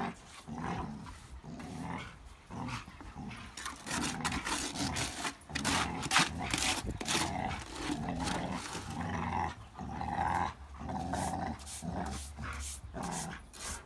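Dogs growling in a run of short, low growls one after another while tugging a rope toy between them in play: a German Shepherd and an American Staffordshire Terrier.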